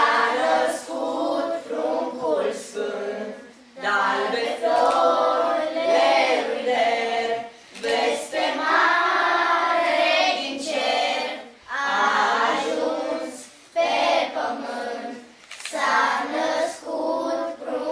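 A group of schoolchildren singing a Romanian Christmas carol (colind) unaccompanied, in sung phrases with short breaths between them.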